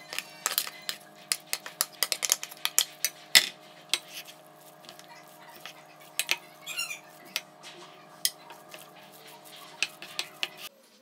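A wooden spoon scraping and knocking against a metal pot as the chicken filling is scooped out, then stirring the filling in a ceramic bowl: a run of sharp clicks and knocks, densest in the first few seconds and loudest about three and a half seconds in, over a faint steady hum.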